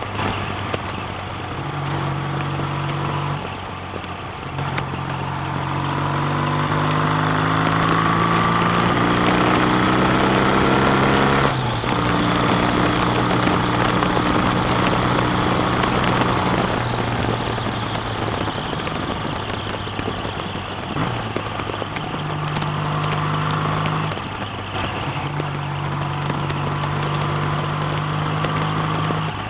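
BSA A65 650 cc parallel-twin motorcycle engine running on the road. Its pitch climbs steadily, drops abruptly about twelve seconds in, eases off a few seconds later, then holds steady.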